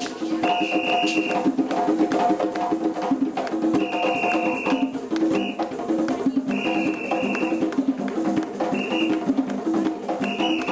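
Live African-style drumming with a steady, repeating rhythm of pitched drum notes. A high shrill note sounds for about a second at a time, five or six times over the rhythm.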